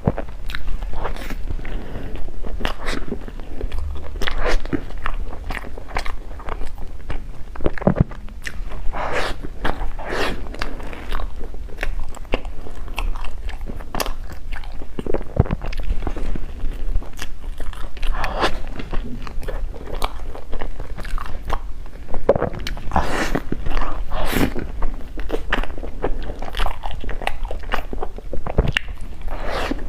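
Close-up chewing and biting of food, with many irregular crunchy clicks and crackles as it is chewed.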